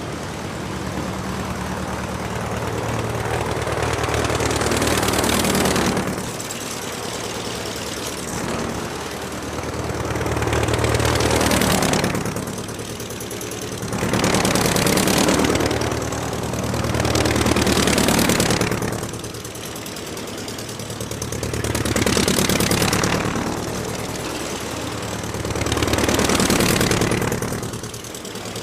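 Aircraft engine running steadily, its sound swelling louder and falling back about six times, every few seconds.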